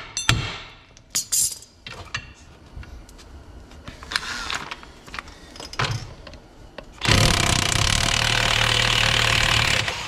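DeWalt cordless impact wrench running on a suspension nut for about three seconds, starting about seven seconds in, after a few short metallic knocks of tools being handled.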